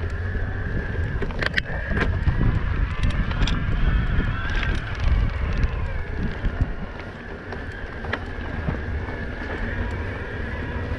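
Mountain-bike ride on a gravel track: wind buffets the microphone over a low rumble of tyres on loose ground, with scattered clicks from stones and the bike. A high whine wavers up and down throughout, in the manner of an electric mountain bike's mid-drive motor.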